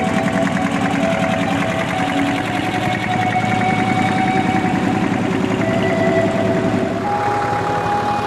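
Vintage tractor engines chugging steadily as the tractors drive past at low speed, with a few held whining tones above the engine beat.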